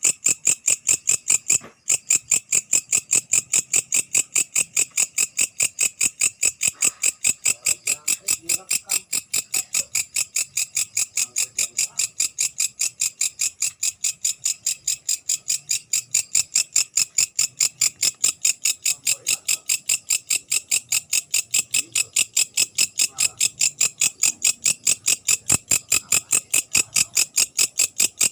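A night-singing grasshopper (belalang malam) calling close by: a loud, even train of short, high-pitched chirps, about three a second, with one brief pause about two seconds in.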